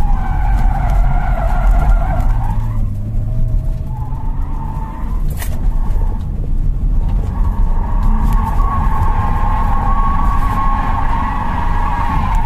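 Tyres squealing as a BMW E46 323Ci slides sideways on winter tyres, heard from inside the cabin over the low rumble of its 2.5-litre straight-six engine. The squeal comes in short spells in the first half, then holds steadily through the second half.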